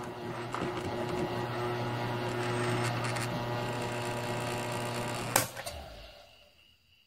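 Grizzly G1007 mill-drill running steadily as a step drill bit bores through the side of an exhaust pipe. A sharp click about five seconds in, then the motor winds down and fades.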